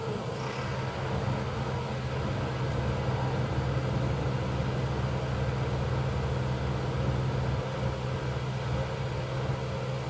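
Engine of a truck-mounted grapple crane running steadily, a constant low hum that holds one pitch throughout.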